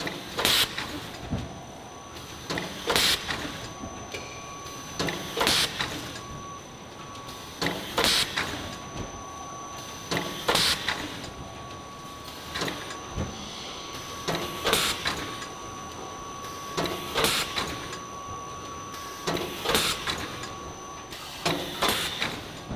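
Plastic bag-making machine running, cycling with a short, sharp clatter about every two and a half seconds as its sealing and cutting bar works through the film, over a steady mechanical hum with a faint high whine.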